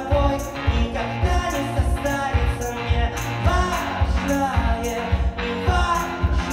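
Live rock band playing: a man sings into a microphone over electric guitar and keyboard, with a steady bass-drum beat of about two thumps a second.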